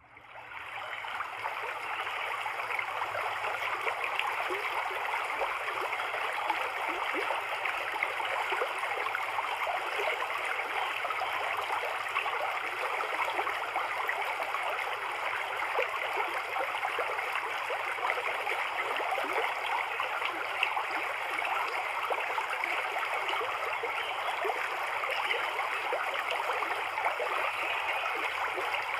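Running water, a steady splashing, gurgling flow.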